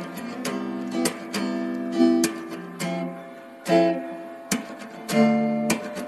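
Background music: an acoustic guitar strumming chords, each strum ringing on between strokes.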